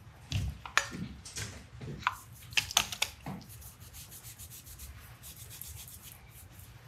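A cloth shop towel wiping and rubbing around a metal colander rim. Several sharp scrapes and clicks from handling come in the first three seconds or so, then quieter steady rubbing.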